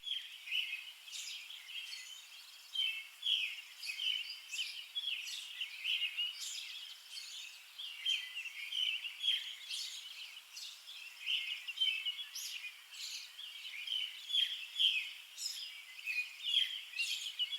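Small birds chirping: a steady run of short, high chirps, a few each second.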